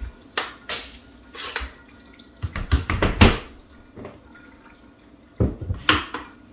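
A series of sharp knocks and taps from a wooden shelf board and a level being set down and shifted against the wall, with a quick cluster of knocks about halfway through and two more near the end.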